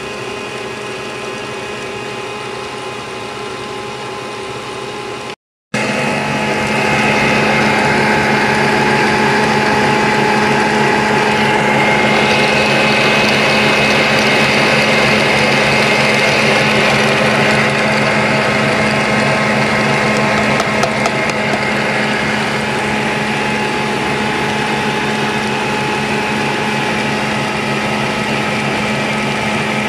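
Electric stand mixer running steadily, its wire whisk beating eggs and sugar into a sponge-cake batter. The sound cuts out for a moment about five seconds in and comes back louder.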